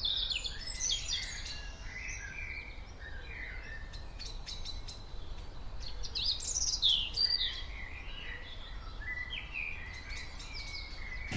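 Small birds chirping and singing: many short, overlapping calls and quick rising and falling notes over a faint steady background noise.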